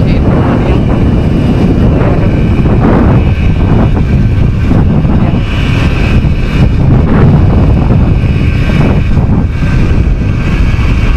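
Yamaha DT100's single-cylinder two-stroke engine buzzing as the motorcycle is ridden, the note swelling and easing with the throttle, over a heavy rumble of wind on the microphone.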